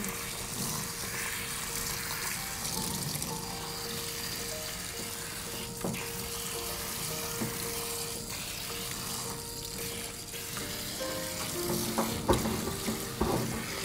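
Hand-held shower sprayer running warm water over a Bichon Frise puppy's coat in a sink: a steady, even hiss of spray. Soft background music with long held notes plays underneath.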